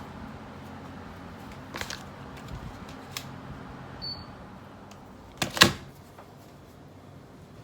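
A few light clicks and a short high beep, then a louder knock about five and a half seconds in, over a low steady hum.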